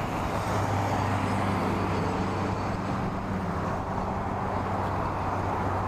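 Outboard boat motor idling steadily, a low even hum.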